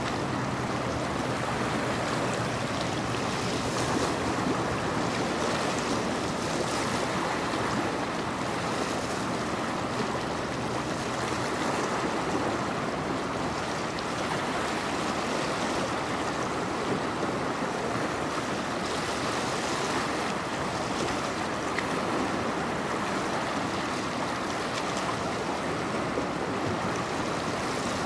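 Steady rush of choppy, fast-flowing river water lapping against the riverfront wall.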